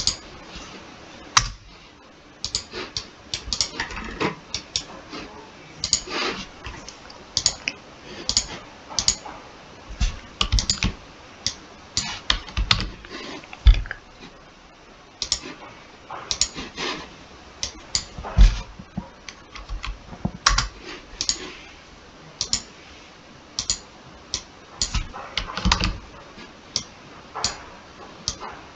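Typing on a computer keyboard: irregular key clicks in short flurries separated by brief pauses.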